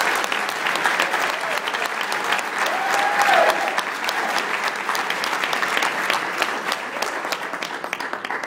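Audience applauding, a dense steady patter of many hands clapping, with one voice calling out briefly about three seconds in.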